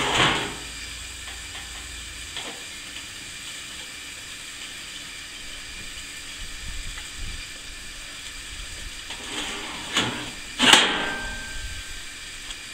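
Burgers sizzling with a steady hiss under a closed barbecue grill lid, the burners just shut off. Two brief, louder rushes of noise come near the end, the second the loudest.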